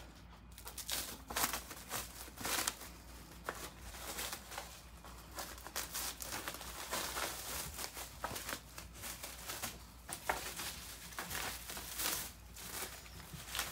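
Plastic packaging crinkling and rustling as it is handled, in irregular bursts.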